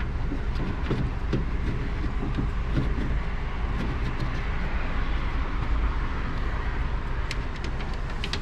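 Steady outdoor background rumble of traffic, with scattered light clicks and taps during the first few seconds and again near the end.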